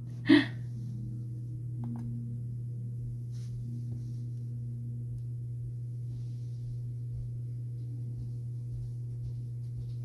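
A steady low hum runs throughout. A short, loud voice sound comes right at the start, and a few faint clicks follow about two and four seconds in.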